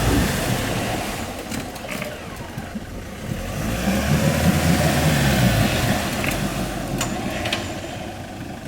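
Four-wheel-drive car's engine revving, its pitch and loudness rising and falling.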